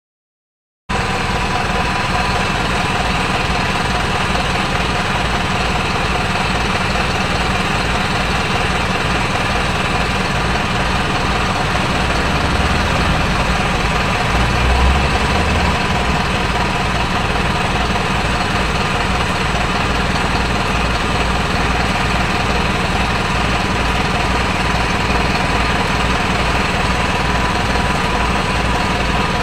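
Diesel bus engine idling: a steady, rapid low clatter that starts just under a second in, swelling slightly in the low rumble about halfway through.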